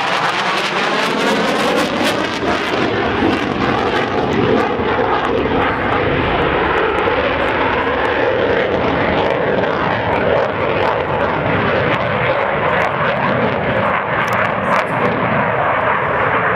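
Saab JAS 39C Gripen fighter's single RM12 turbofan running loud and steady during a display flight, with a sweeping, phasing sound in the first couple of seconds.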